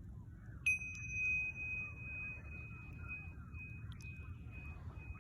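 A small meditation chime or bell struck once, about a second in, with one clear high ringing tone that slowly fades over the next few seconds, over a low steady outdoor background.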